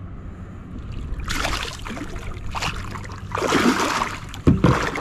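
A big flathead catfish thrashing at the surface beside a kayak as it is played boatside, splashing in three bursts, with a sharp smack just before the end that is the loudest sound.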